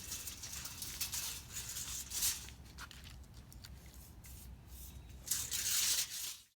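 Blue masking tape being pulled off the roll and pressed down, a rough tearing hiss that comes in short bursts, with a longer, louder pull near the end.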